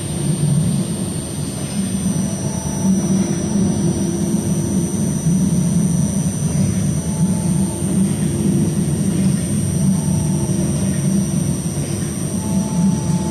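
Buffalo Metro Rail light-rail car running, heard from inside the car: a steady low rumble with a faint, high-pitched whine on top.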